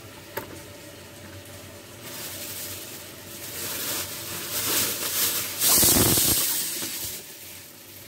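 Rustling, crinkling handling noise close by, building up about two seconds in and loudest about six seconds in, after a single light click near the start.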